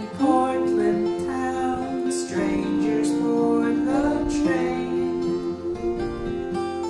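A song's instrumental passage: acoustic guitar strumming under a melody of long held notes that glide from one pitch to the next.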